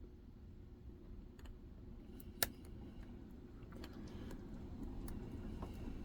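Small scattered clicks of a steel lock pick and pry-bar tension tool working the pins of a Medeco six-pin KIK cylinder, with one sharper, louder click about two and a half seconds in.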